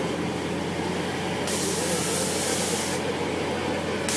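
Helicopter-style amusement ride running with a steady machine hum and a wavering whine, cut across by two sudden bursts of hissing, each about a second and a half long: one about a second and a half in, the other starting just before the end.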